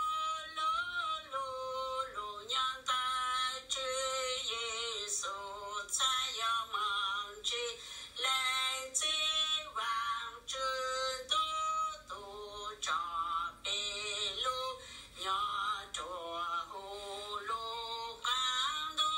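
A woman's voice singing a melody in short phrases, with a wavering vibrato on the held notes.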